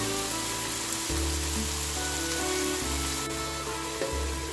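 Sliced onions, tomatoes and green chillies sizzling as they fry in oil in a square pan: a steady, even hiss. Background music with sustained low notes plays over it.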